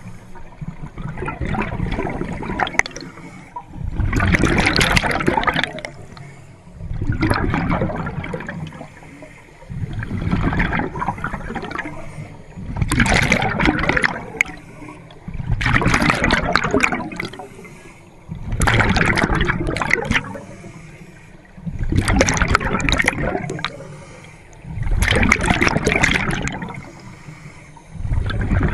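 Scuba diver's exhaled bubbles bubbling out of the regulator underwater, in regular bursts about every three seconds with each breath.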